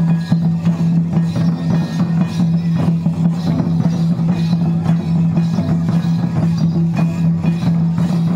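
Music for the Santali Karam dance: drums beat a steady dance rhythm over a steady low hum, with no break.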